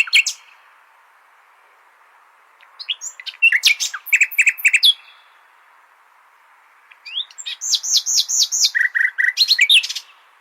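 Nightingale singing in phrases of rapid repeated notes and trills. The end of one phrase falls at the very start, another comes about three seconds in, and a longer one runs from about seven seconds to near the end, over a faint steady hiss.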